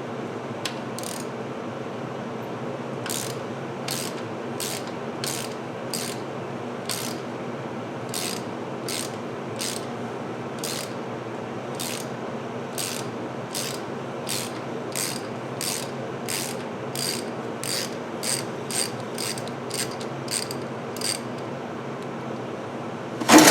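Hand ratchet wrench clicking stroke by stroke as a welded-on nut backs a broken exhaust manifold stud out of a cast iron cylinder head. The clicks come about once a second and quicken to about two a second before stopping, over a steady low hum. A single loud clank comes near the end.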